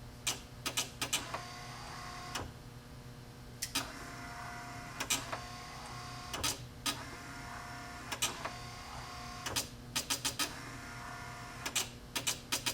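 Automotive relays clicking in quick clusters while an electric windshield wiper motor runs with a steady whine in spells between them. The builder thinks the relays chatter because his little 1-amp power supply can't deliver enough current, and the setup isn't running right.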